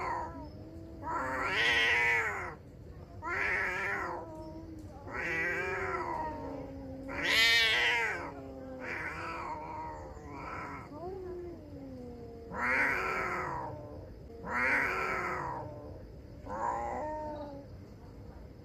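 Two domestic cats yowling in a face-off: a string of long, wavering yowls about every two seconds, the loudest about halfway through. This is the aggressive caterwauling of a territorial standoff before a fight.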